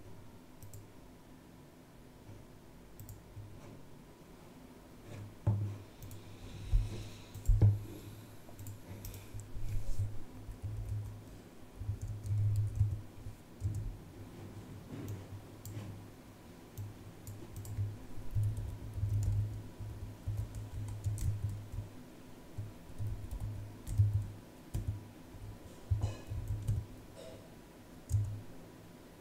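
Typing on a computer keyboard in irregular bursts, keys clicking and thudding, with short pauses between commands.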